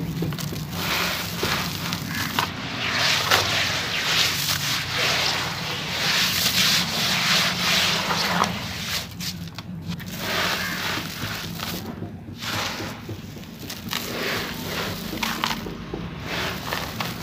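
Hands crumbling and squeezing cement in a tub of muddy water, making a dense run of small crackles and crunches, with short breaks about ten and twelve seconds in.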